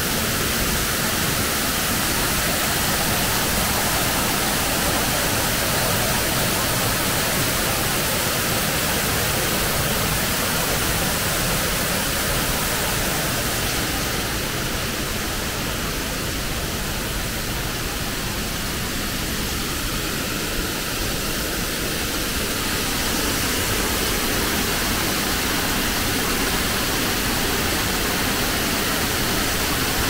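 Steady rush of water at a man-made canal waterfall: water spilling over a ledge and falling as a curtain into churning white water. It eases a little in the middle, then comes back.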